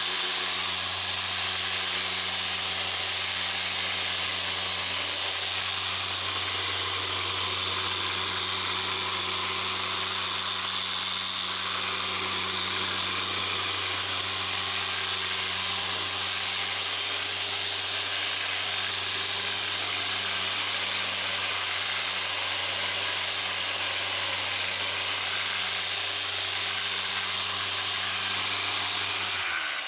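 Electric random orbital sander running steadily against a Corian solid surface countertop, a constant motor hum under a gritty hiss from the pad on the surface, blending a repaired area into the surrounding finish. The sander switches off right at the end.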